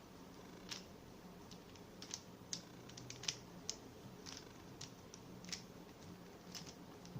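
Faint, irregular plastic clicks of a Rubik's cube's layers being turned by hand in quick succession, as a move sequence is run through.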